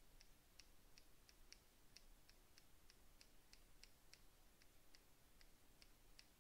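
Faint, quick computer mouse clicks, about three a second at slightly uneven spacing, as sculpting brush strokes are made; otherwise near silence.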